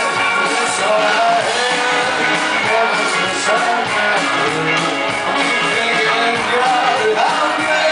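Live indie rock band playing: a male voice singing over electric guitars, drums with cymbals, and keyboard, heard from the audience in a concert hall.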